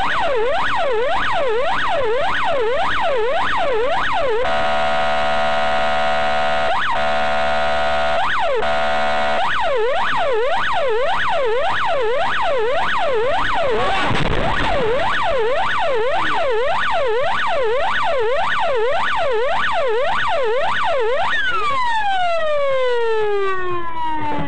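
Siren in a fast yelp, a rapid up-and-down wail about three times a second. It is broken for about five seconds by a steady horn-like blast, then winds down in a long falling sweep near the end.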